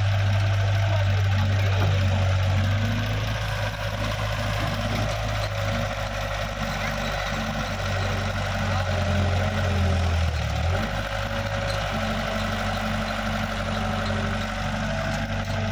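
KATO crawler excavator's diesel engine running steadily as the machine swings and digs, a little louder for the first few seconds and again near the end.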